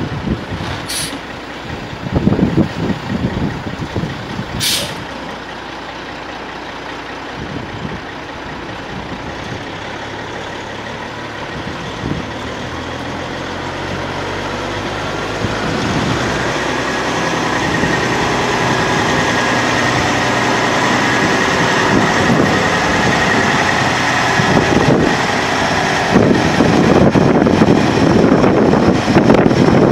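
Kenworth T800 semi tractor's Caterpillar C15 Acert inline-six diesel running as the truck drives across gravel, growing steadily louder as it comes closer and picking up revs about halfway through, with a steady high whine after that. Two short air hisses, typical of the truck's air brakes, come about a second in and again near five seconds.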